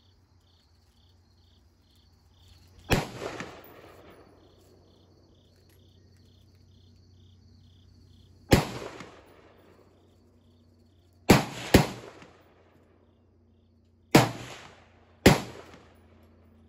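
Six gunshots from other shooters, each ringing out and dying away over about a second: single shots about three and eight seconds in, then two pairs fired close together. Behind them, insects chirp in a steady high pulse of about three a second.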